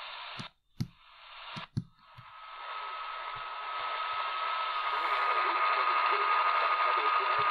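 Pocket AM radio tuning up the medium-wave band: a few clicks and brief mutes as it steps between channels. It then settles on a weak station that is mostly hiss, with a steady high whistle through it and the hiss growing louder over the next few seconds. The whistle is typical of the birdie tones that plague this receiver's MW band.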